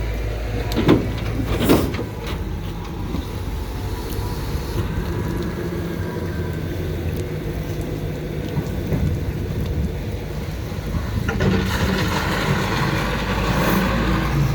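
Refuse truck engine running steadily, with two sharp knocks in the first two seconds and a busier, louder stretch of clatter near the end.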